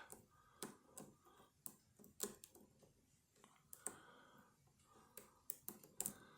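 Faint, irregular clicks and taps of a pick working the pins and sliders of a Vachette V-DIS+ dimple lock, its core held in a deep false set.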